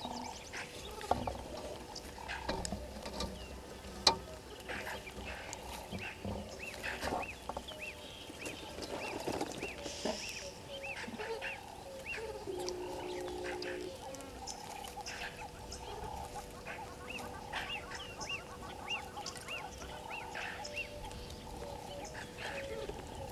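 Bush ambience of birds calling: one bird repeats short chirps two or three times a second, and a brief nasal honking call sounds about twelve seconds in. A few sharp knocks, the loudest about four seconds in.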